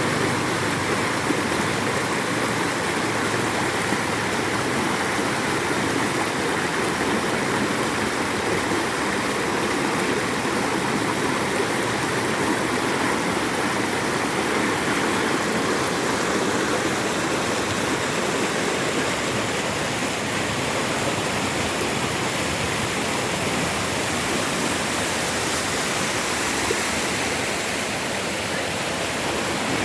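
Floodwater rushing along a street like a river after heavy rain, a steady rush of water.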